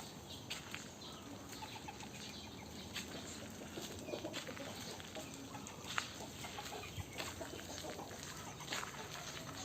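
Aseel chickens clucking softly over a steady farmyard background, with a few scattered sharp clicks.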